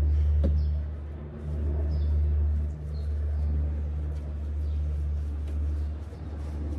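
Low, steady rumble that swells and dips in loudness, with a few faint clicks over it.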